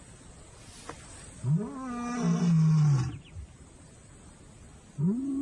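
Male lion roaring: one long roar about a second and a half in that rises and then falls in pitch, and a second roar starting near the end. These are territorial roars, announcing to neighbouring lions that he holds the area.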